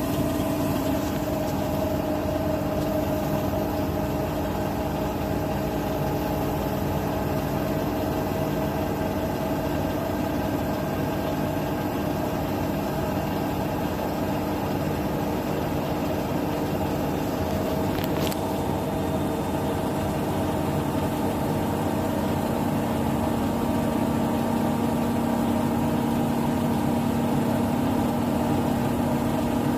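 Bosch Serie 6 WAT28490NL front-loading washing machine in its spin-only cycle, the drum spinning at speed with a steady motor hum and whir. There is a brief click about two-thirds of the way through, and the sound grows slightly louder with a lower hum in the last third.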